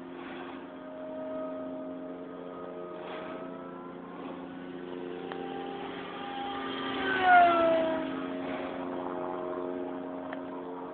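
Electric radio-controlled Mustang model plane flying overhead, its motor and propeller giving a steady whine. About seven seconds in the plane passes close: the whine grows louder, then drops in pitch as it goes by.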